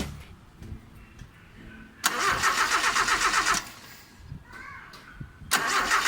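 Starter motor cranking the 1979 Mitsubishi Colt Lancer's 4G32 Saturn inline-four in two short bursts, each with an even pulsing rhythm of the engine's compression strokes. The engine does not catch.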